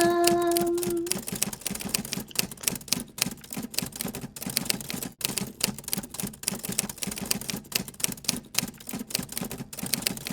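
A last held sung note dies away about a second in. A rapid, irregular clatter of sharp clicks and taps follows, several a second, and stops abruptly at the end.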